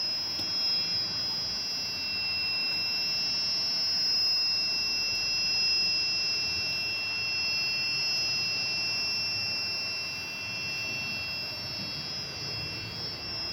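Piezo buzzer of an Arduino Uno ultrasonic door alarm sounding a steady, high-pitched electronic tone. The alarm has been triggered because the ultrasonic sensor detects the door standing open.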